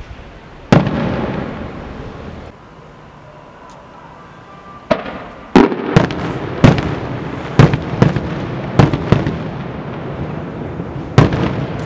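Aerial firework shells bursting: one loud bang under a second in that rolls and echoes for about two seconds, then after a short lull a quick string of sharp bangs, about nine in six seconds, each echoing, the last near the end.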